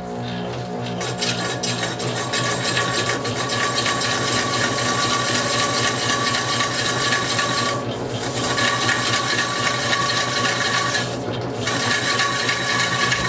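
A hand file held against the edge of a spinning wheel lip, rasping continuously as it cuts a 45-degree chamfer, over the steady hum of the motor turning the lip. The rasping breaks off briefly twice, about eight and eleven seconds in.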